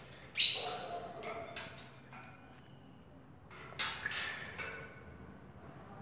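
A caged parakeet screeching: a loud call about half a second in and another near four seconds in, with a weaker call between them.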